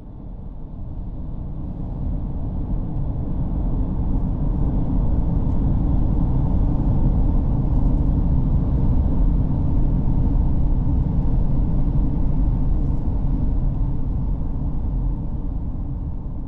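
Steady low rumble of a vehicle driving along a road, fading in at the start and out near the end.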